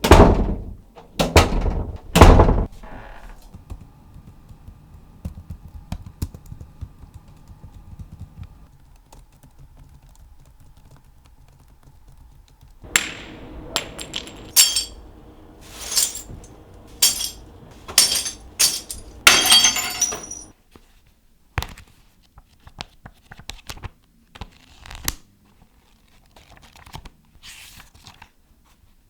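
A series of separate impact sounds: three loud thunks near the start, then, after a quiet stretch, a quicker run of sharp knocks and clinks.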